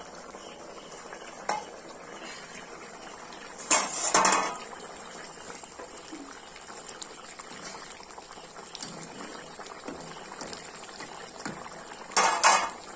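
Chicken gravy simmering and bubbling in an iron kadai. A metal spoon scrapes and clatters against the pan twice: about four seconds in and again near the end.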